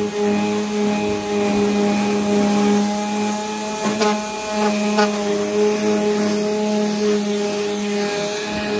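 Electric random orbital sander running steadily against the painted metal gunwale of a jon boat, grinding off chipped green paint, with a couple of light knocks about four and five seconds in.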